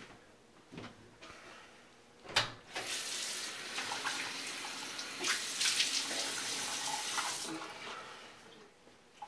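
Bathroom tap running into a sink. A knock comes about two and a half seconds in, then the water runs steadily for about five seconds and fades out about a second before the end.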